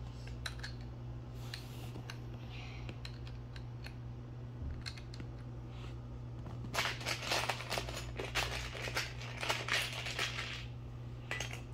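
Loose Lego bricks clattering as a hand rummages through a clear plastic bin full of them: a few scattered single clicks, then a dense run of rattling for about four seconds in the second half. A steady low hum lies underneath.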